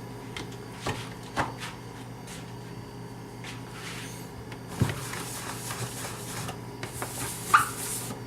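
Plastic parts of a coffee maker being handled: scattered light clicks and knocks, a low thump about five seconds in and a sharp click near the end.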